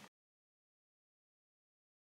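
Silence: the soundtrack cuts out to nothing a moment after the start.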